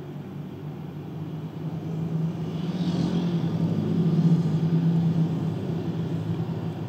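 Low steady hum of motor vehicles heard from inside a car cabin, swelling to a peak about four seconds in and then easing, as a vehicle passes on the road outside.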